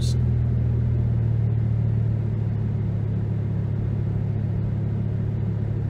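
Ford Focus ST225's 2.5-litre turbocharged five-cylinder engine idling steadily after a cold start. About two seconds in, the low drone shifts and drops slightly as the cold-start fast idle comes off.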